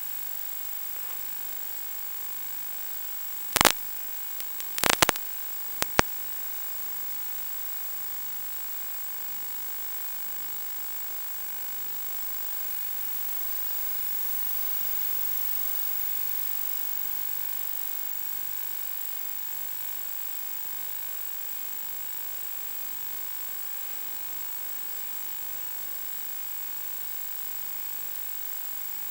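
Steady electrical hum and hiss with a thin high whine, the noise of an analog FPV video downlink's audio channel carrying no sound, broken by a few sharp crackles of interference, once about three and a half seconds in and a short cluster around five to six seconds in.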